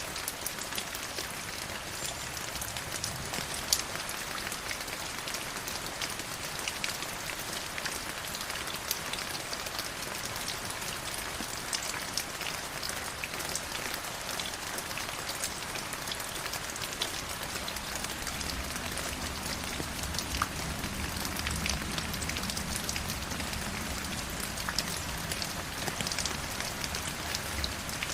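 River water flowing and splashing steadily, a dense hiss full of small droplet splashes. A low rumble comes in about two-thirds of the way through.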